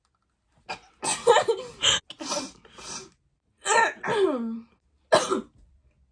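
A girl making a series of about five short cough and throat-clearing noises, acted out as sounds of winter; one voiced noise about four seconds in falls in pitch.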